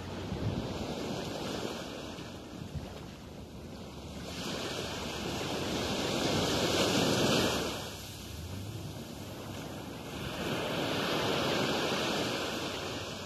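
Small sea waves breaking and washing up a sandy beach, the surf swelling and ebbing, loudest about seven seconds in and again near the end.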